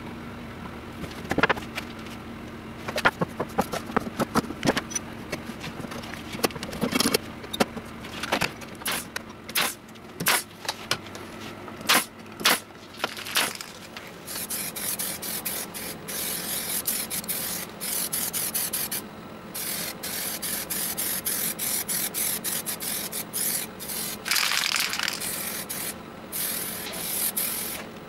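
For about the first half, a run of sharp clicks and knocks as wooden parts are handled. Then spray paint from an aerosol can hisses in long bursts with short breaks.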